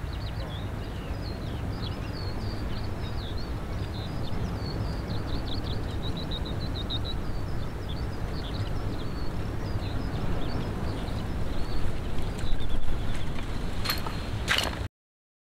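Small birds chirping in quick, high, repeated notes over a steady low rumble of wind on the microphone. A couple of sharp knocks come near the end, then the sound cuts off suddenly.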